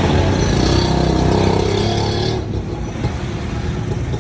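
Street traffic with a motor vehicle passing close, its engine loud for the first two and a half seconds and then falling away, leaving steady traffic noise.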